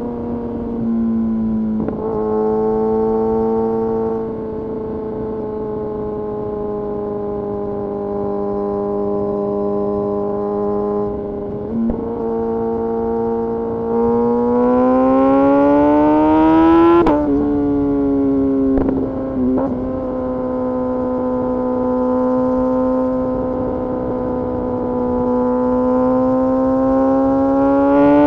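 Kawasaki Ninja ZX-6R inline-four engine running under way at fairly steady revs. The revs climb about halfway through, drop sharply with a gear change, then hold steady and climb again near the end.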